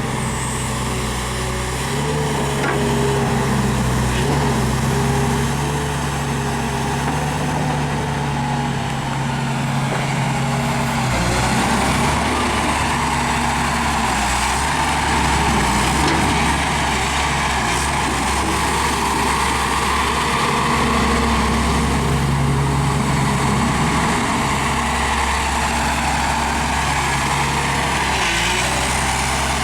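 Hyundai R500LC-7 crawler excavator's diesel engine running steadily, its note shifting about eleven seconds in and again near the end.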